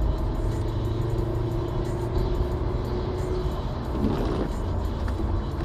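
Car driving on a wet road: steady engine and road rumble, with a short dip and rise in engine pitch about four seconds in.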